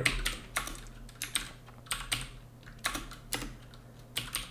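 Typing on a computer keyboard: irregular key clicks, some coming in quick runs, others spaced apart.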